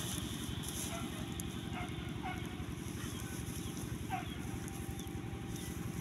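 A few short, faint animal calls, each falling in pitch, over a steady low rumble.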